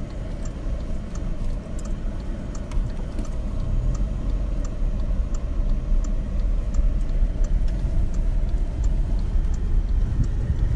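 Steady low rumble of a car's engine and tyres heard from inside the cabin while driving slowly on a dirt track, with faint light ticks scattered through it.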